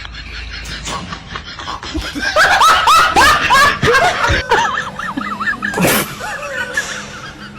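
High-pitched laughter in rapid, repeated squealing peals, loudest a couple of seconds in. A sharp hit sounds about six seconds in.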